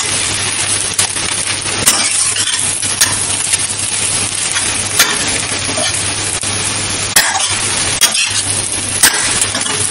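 A steel spatula scrapes through dry-fried potato and onion in a stainless steel kadhai, clinking sharply against the pan about once every second or two, over a steady frying hiss.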